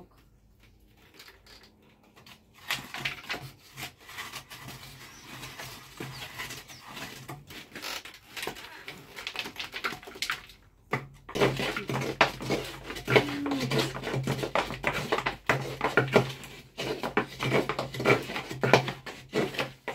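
A stick scraping and knocking around inside a dried calabash gourd, rapid irregular scratches, as the inside is coated with charcoal to prepare the gourd for milk. The scraping gets louder about eleven seconds in.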